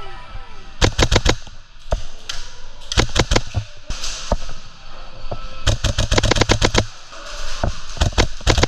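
Novritsch SSQ4 HPA airsoft rifle firing in short rapid bursts and single shots, sharp cracks with a few quick ones about a second in and the longest burst about six seconds in.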